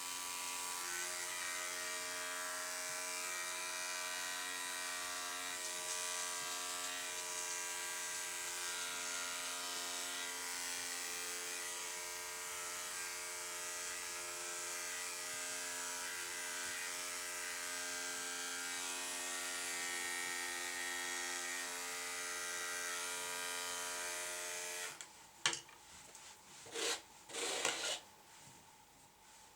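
Electric grooming clippers running with a steady, even hum, switched off about 25 seconds in, followed by a few short clicks.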